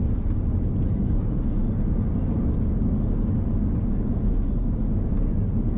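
Steady low rumble of an Airbus A330-200 airliner heard inside the cabin, engine and airflow noise at an even level.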